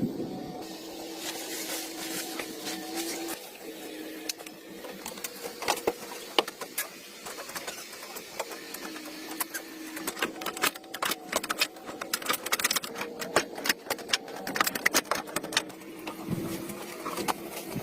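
Rapid, irregular mechanical clicking and rattling, busiest in the middle, over a faint steady hum that comes and goes.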